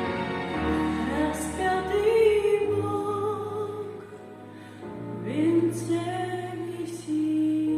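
Slow song with instrumental accompaniment, a woman singing long held notes over it.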